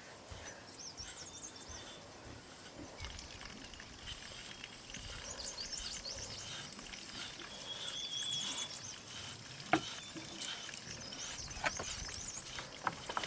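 Rural forest ambience: birds chirping and a steady high insect drone, with a few sharp knocks about ten seconds in and near the end.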